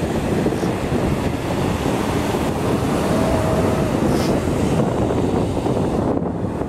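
Wind buffeting the microphone over the steady rush of surf breaking on the beach.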